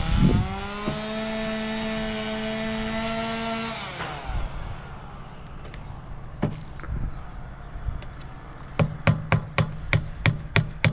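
A hammer drives nails into fascia trim with a quick run of about nine sharp blows, roughly four a second, near the end. Earlier, a steady pitched droning hum rises, holds for about three seconds and falls away.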